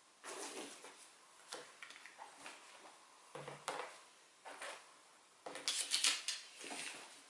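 Household objects being handled at close range: a series of light clicks, knocks and short brushing or scraping noises, busiest a little under six seconds in.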